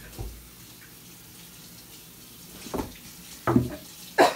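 Kitchen faucet running steadily into the sink. Three short, loud mouth noises come near the end, the last two the loudest.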